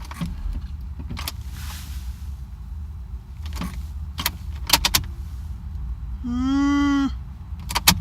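Car keys jangling and clicking as the key goes back into the ignition of a Honda Accord that will not start, over a low steady hum. About six seconds in comes one steady tone, about a second long.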